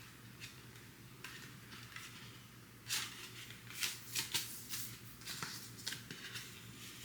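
CD box set packaging and discs being handled: a series of short rustles and clicks, loudest about three seconds in and again a second later.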